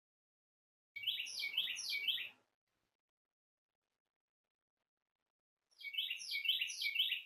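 A songbird singing the same short phrase twice, about five seconds apart, each a quick run of about four repeated slurred notes.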